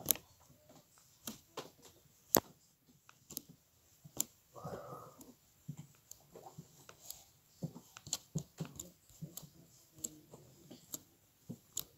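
Sticky, glittery homemade butter slime being poked by hand, giving small, not very loud popping clicks at irregular intervals, with one longer soft squish about halfway through.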